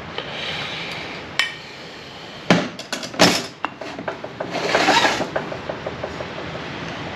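Steel automatic-transmission clutch hub and drum parts being handled and set down, clinking and clanking against each other and the metal bench top. A cluster of sharp knocks comes about two and a half to three and a half seconds in, then a short rattle and a run of light ticks.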